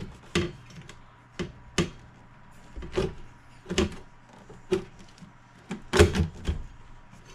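About ten sharp, irregular knocks and clicks of hands and tools handling a plate amplifier against a wooden subwoofer enclosure while it is being glued in, the loudest about six seconds in.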